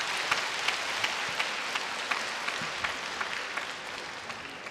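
Spectators applauding between rallies of a table tennis match. The clapping is loudest at the start and fades away.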